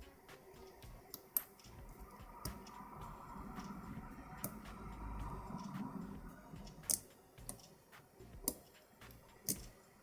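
Lock pick and tension wrench working the pins of a Eurospec 6-pin euro cylinder during single-pin picking: a handful of light, irregular metal clicks over faint scraping.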